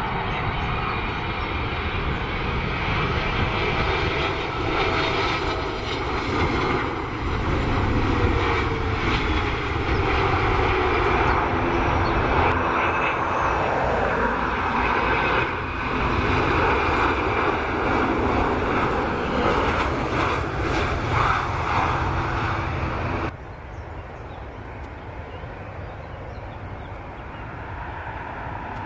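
Jet engines of airliners on final approach with landing gear down, giving loud, steady jet noise and a falling whine between about 7 and 10 seconds in. About 23 seconds in, the sound cuts abruptly to a quieter, more distant approaching jet.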